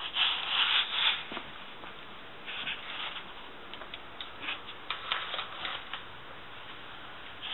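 Handling noise from a handheld camera being carried and swung about: rustling and rubbing in several short bursts, the loudest in the first second.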